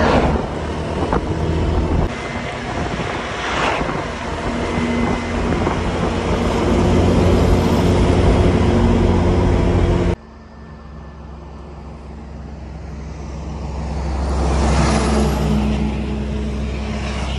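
A road vehicle driving on an asphalt road: steady engine hum with tyre and road noise. There are two louder swells, about four seconds in and near the end, and the sound changes abruptly about ten seconds in, becoming more muffled with less hiss.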